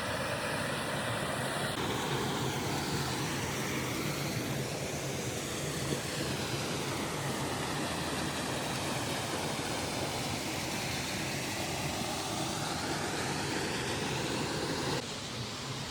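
Steady rushing roar of a waterfall, with a slow swirling, phasing quality.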